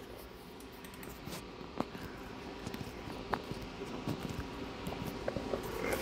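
Faint scattered clicks and handling noise over quiet room tone, with two slightly sharper clicks about two and three seconds in.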